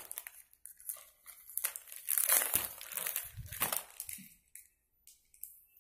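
Clear plastic poly bag crinkling and rustling in irregular bursts as a folded T-shirt is handled and pulled out of it, stopping about four seconds in.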